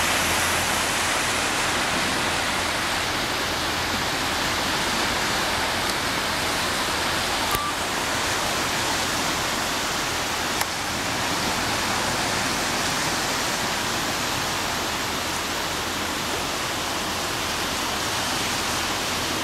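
Steady rushing hiss of small whitecap waves breaking along the Lake Ontario shore, with two brief faint clicks about seven and ten seconds in.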